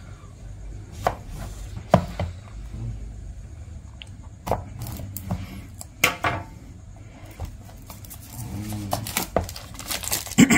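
A kitchen knife slitting and scraping the plastic shrink-wrap on a small cardboard box (an Apple Magic Mouse box), with scattered sharp clicks and taps of blade and box against the desk, and the wrap rustling as it starts to be peeled off near the end.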